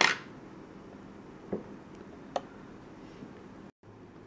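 Light handling noises as a coaster and coin are cleared off a stainless-steel kitchen scale: a sharp clack at the start, then two softer knocks or clicks over faint room tone. Near the end the sound cuts out for a moment.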